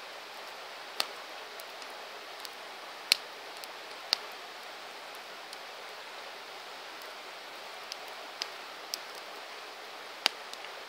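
Wood campfire crackling: a steady hiss with a handful of sharp pops scattered through it, the loudest about three seconds in and another strong one near the end.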